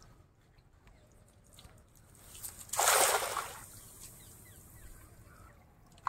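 Water splashing once, briefly, about halfway through.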